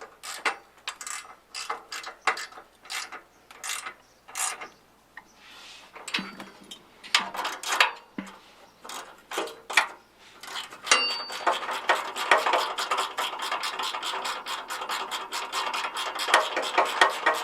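Hand ratchet wrench clicking as a fastener is tightened down: slow single clicks for the first several seconds, then a fast, continuous ratcheting run from about two-thirds of the way in.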